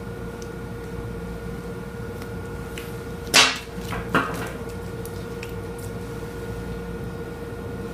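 Steady electrical hum of treatment-room equipment, broken by a loud sharp clack about three and a half seconds in and a smaller one just after four seconds, with a few faint ticks between, as hand instruments are handled and set down.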